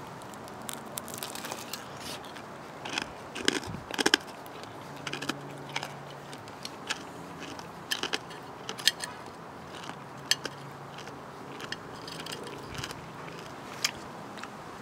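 Crispy fried chicken crust crunching and crackling as the drumsticks are handled with metal tongs, in irregular sharp crackles that are loudest about four and nine seconds in. A faint steady low hum of construction noise runs underneath.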